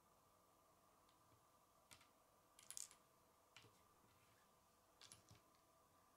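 Faint clicks and taps of small plastic Lego pieces being picked up and handled on a wooden table: a few scattered clicks, the loudest short cluster about three seconds in, over a faint steady hum.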